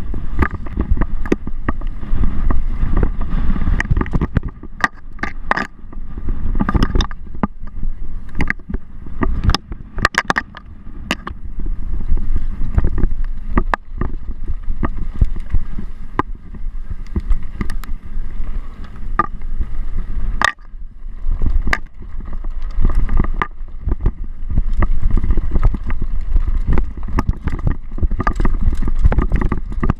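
Mountain bike being ridden fast over rough ground: a heavy low rumble of wind buffeting the microphone, with frequent sharp clacks and rattles from the bike.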